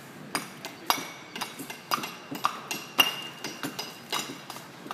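Masons' steel trowels clinking and tapping against brick and block as several bricklayers work: irregular sharp metallic taps, some ringing briefly, the loudest about three seconds in.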